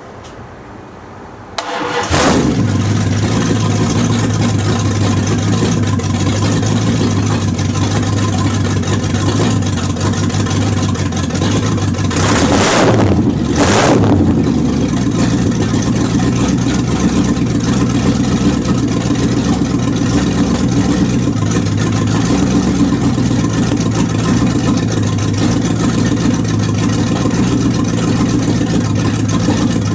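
1929 Chrysler engine starting from dead cold about a second and a half in, then running at a steady idle. Two brief loud rushes of noise come near the middle.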